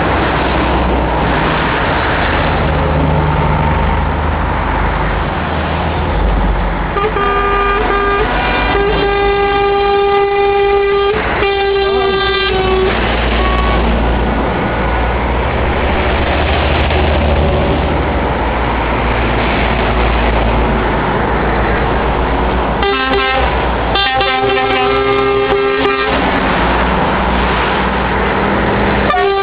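Scania trucks in a convoy driving past, their diesel engines rumbling steadily, with truck horns sounding in long steady chords twice: one blast from about seven seconds in lasting some five seconds, and a shorter one about twenty-three seconds in.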